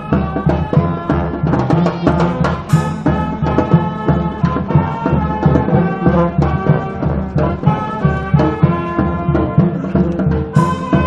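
Brass band music with drums, horns holding notes over a steady, even beat.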